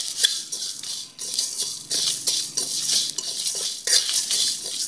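A spatula scraping and stirring whole spices and broken dried red chillies dry-roasting in a kadai on low heat: a run of rasping strokes with small clicks of seeds against the pan.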